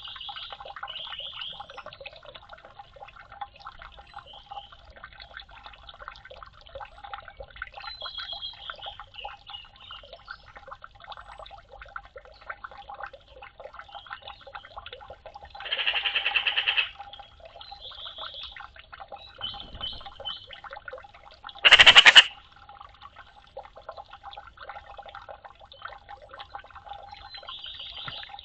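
Eurasian magpies with trickling, dripping water and small high chirps. A harsh rattling call lasts about a second a little past the middle, and a short, louder, sharper sound comes a few seconds after it.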